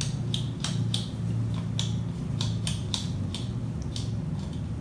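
Plastic being handled: a string of light, irregular clicks and crackles, about three a second, over a steady low hum.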